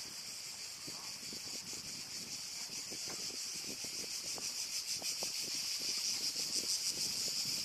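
A high, steady insect chorus, growing louder toward the end, with faint voices underneath.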